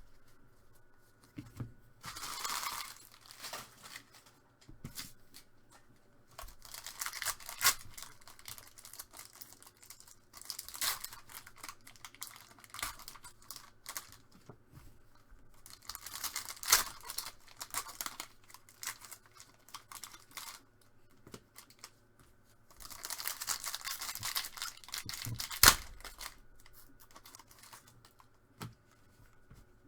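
Trading card pack wrappers being torn open and crinkled, in repeated bursts of ripping a few seconds apart, with sharp cracks of the foil and card stock; one crack near the end is the loudest.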